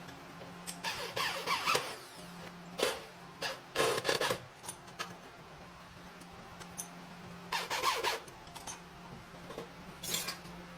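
Irregular scraping, rubbing and clattering of metal parts being handled and worked, some scrapes with a brief squeak, over a steady low hum.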